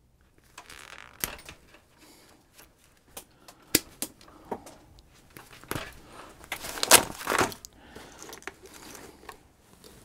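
Gloved hands handling wiring, connectors and tools on a workbench: scattered irregular clicks, taps and rustling, with a louder burst of rustling about seven seconds in.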